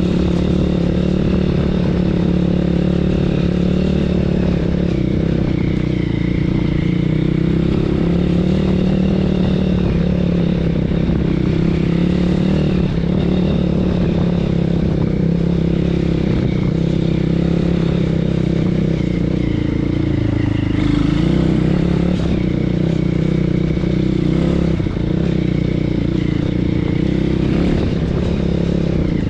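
BSE PH 150 pit bike's 150 cc single-cylinder engine running steadily as it is ridden along a trail, with a short drop in revs and then a rise again about two-thirds of the way through.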